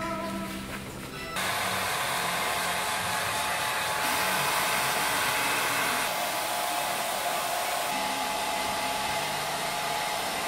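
Handheld hair dryer blowing, coming on about a second in: a steady rushing hiss with a thin, even motor whine, louder for a couple of seconds in the middle.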